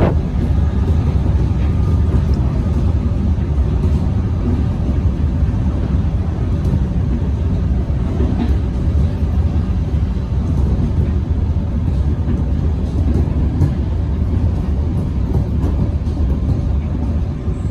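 Melbourne suburban electric train running, a steady low rumble from its wheels and running gear.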